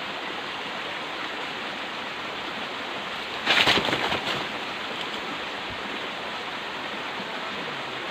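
Steady rushing outdoor background noise, with a short burst of rustling and crackling about three and a half seconds in.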